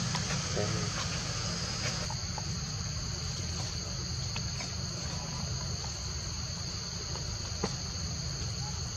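Insects in the surrounding forest droning steadily at a high, even pitch, over a constant low rumble, with a few faint ticks.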